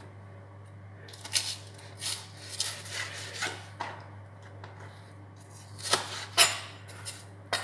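Large kitchen knife cutting through a leafy vegetable and knocking on a chopping board: a few irregular sharp knocks, the loudest about six seconds in, over a low steady hum.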